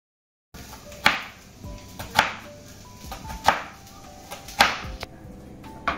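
Knife cutting through a small onion onto a wooden cutting board: five slow, sharp chops about a second apart. Soft background music plays underneath.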